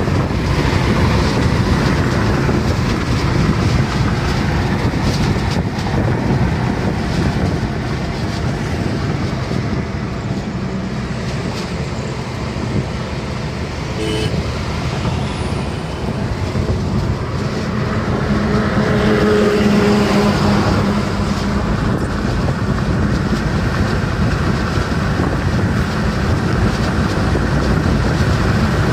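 Tata Nexon driving at highway speed, heard from inside the cabin: steady engine, tyre and wind noise. A brief pitched tone sounds about halfway through.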